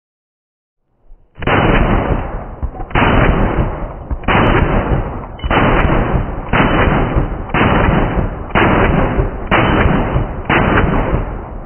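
Gunshots from an AR-15-style pistol played back slowed down: about nine shots, roughly one a second, each stretched into a deep, muffled boom that dies away slowly.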